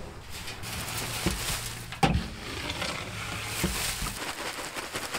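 Used wood-shavings bedding being scraped out of a chicken coop and pouring into a metal wheelbarrow: a dense, crackly rustling. A sharp knock comes about two seconds in, with lighter knocks before and after it.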